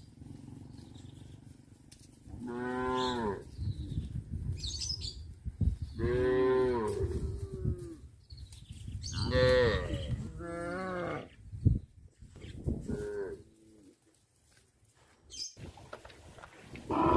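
Domestic cows mooing: about five separate drawn-out moos, some longer and some shorter, with a single sharp knock between calls about two-thirds of the way through.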